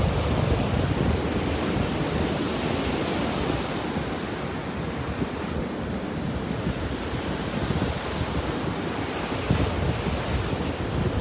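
Small surf breaking and washing up a sandy beach in a continuous hiss, swelling near the start and again near the end. Wind buffets the microphone with a low rumble.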